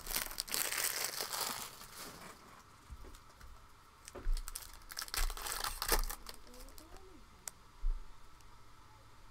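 Foil trading-card pack wrapper crinkling and tearing as it is opened by hand, loudest in the first two seconds. It is followed by scattered sharp clicks and a few dull thumps as the pack and cards are handled.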